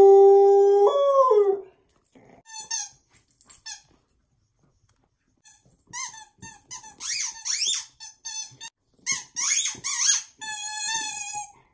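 A dog howling, one long held note that rises and then falls away about a second and a half in. After that, a rubber chicken squeaky toy squeals in irregular bursts as the dog chews it.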